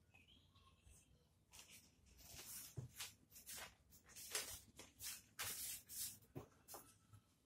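Near silence: room tone, with a string of faint, short rustles from about two seconds in.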